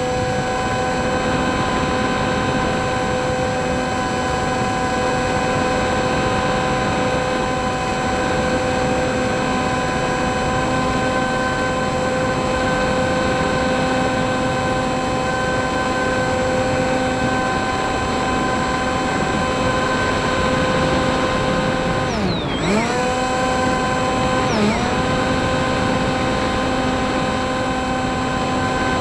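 FPV model plane's motor and propeller running with a steady pitched drone, over wind rush on the onboard camera. About 22 seconds in the pitch drops sharply and climbs back as the throttle is briefly cut, and a second, shorter dip follows about two seconds later.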